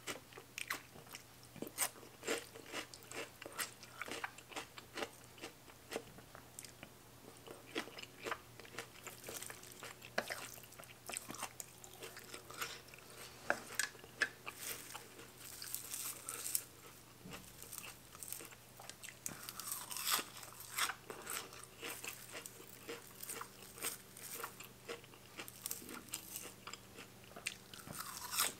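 Close-miked mouth sounds of eating rice noodles in curry with raw vegetables and fresh greens: irregular crunching, biting and wet chewing that keeps up throughout.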